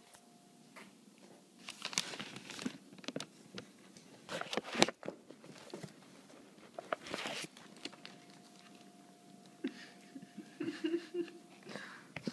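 Rustling and crinkling of a white bag as a cat shifts inside it and the phone brushes against it, in several short bursts of a second or less, with a faint steady hum underneath.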